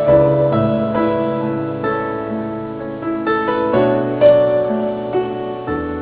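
Slow, gentle solo piano music, notes struck about every half second and left to ring.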